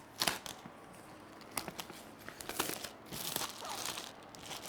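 Motherboard packaging being handled and opened: crinkling and rustling with scattered small clicks, busiest about three seconds in.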